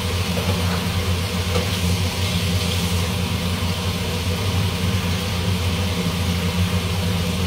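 Kitchen cooker hood fan running steadily over the stove: a low motor hum with a hiss of moving air.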